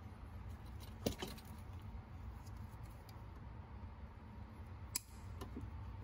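Faint handling of a plastic multi-pin wiring connector and its wires, with a few small clicks about a second in and again near five seconds, over a low steady hum.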